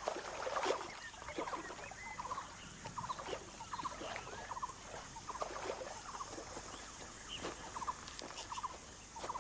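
Natural wildlife ambience: many short chirping and trilling animal calls scattered throughout, over a faint high buzz that pulses evenly about every two-thirds of a second.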